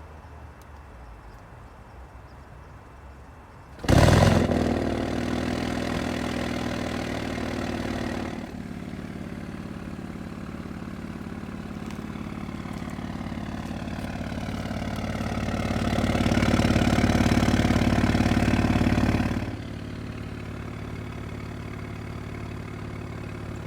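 2020 Audi S7's 2.9-litre twin-turbo V6 with the Audi Sport exhaust starting up about four seconds in with a loud flare, settling to a fast idle and dropping to a lower idle a few seconds later. Near the middle the engine note swells and is held louder for a few seconds, then falls back to a steady idle.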